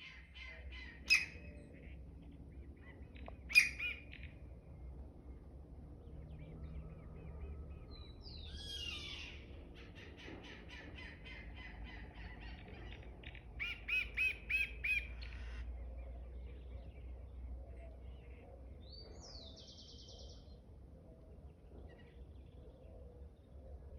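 Several wild birds calling and singing: two sharp loud calls near the start, then runs of rapid repeated notes with a loud burst of about five notes in the middle, and a short high trill later on, over a faint low rumble.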